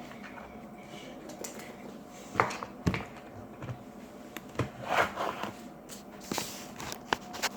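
Handling noises: a few sharp clicks scattered over several seconds, with a short cluster of rustling noise about five seconds in.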